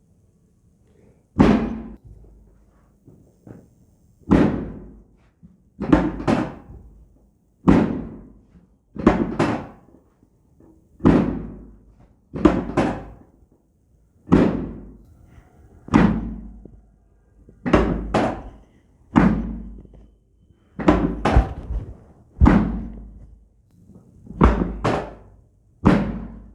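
A steady series of heavy thuds, about one every second and a half, many coming as quick double hits, each dying away over about a second.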